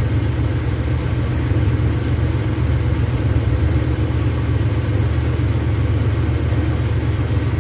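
A steady low mechanical drone, like an engine or motor running at idle, holding the same level throughout with no separate knocks or changes.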